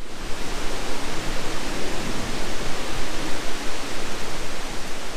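A loud, steady rushing noise with no distinct clicks or tones.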